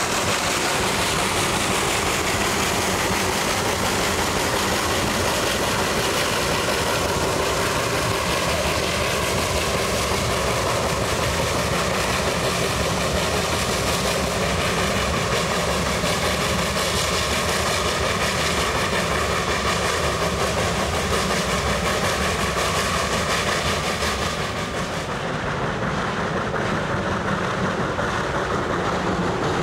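Rack-railway steam locomotive climbing the grade as it pushes its passenger car, with a steady run of working and rolling noise from the engine and the rack track. About 25 seconds in, the sound changes to the passenger cars rolling past on the rack.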